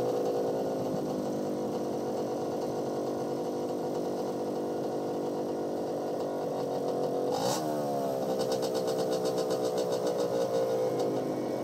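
Racing vehicle engines passing by on a track. A steady engine note slowly drops in pitch, then about seven and a half seconds in a vehicle goes past close by with a sharp rise and fall in pitch. Its engine then pulses away into the distance, and another engine approaches near the end.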